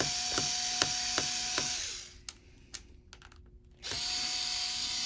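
Small electric screwdriver running steadily with a few light clicks as it backs out a laptop battery screw. It stops about two seconds in and starts again nearly two seconds later.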